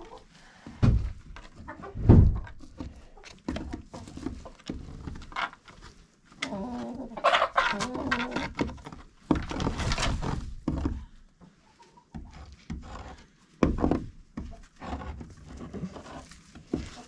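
Chickens clucking and moving around the coop, with several dull thumps, the loudest about two seconds in.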